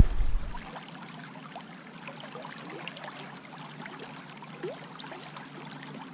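River water running over a shallow riffle: a steady rushing with scattered small ticks. A low rumble fades out in the first half-second.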